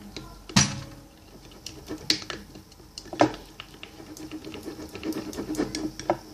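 Plastic spoon stirring glue and borax water in a container as the mixture thickens into slime: a run of small clicks and taps, with a few louder knocks of the spoon against the container.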